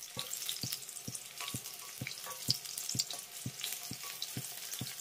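Eggplant pieces sizzling and crackling in hot mustard oil in a kadai while a metal ladle lifts them out, with many small, quick clicks throughout.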